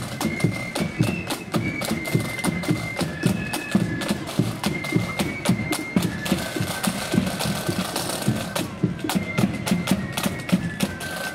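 Marching flute band playing a tune: flutes carry a high melody over snare drums and a bass drum beating time, with one long held note about midway.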